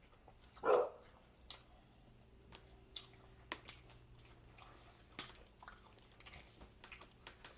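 Close-up eating sounds: chewing with scattered mouth clicks and smacks, and one brief louder sound just under a second in.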